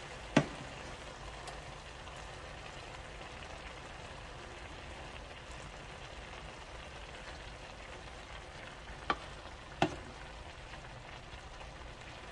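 Vegetables and turkey sausage sizzling with a steady hiss in a pot as they are stirred. Three sharp knocks come through it: one near the start and two close together near the end.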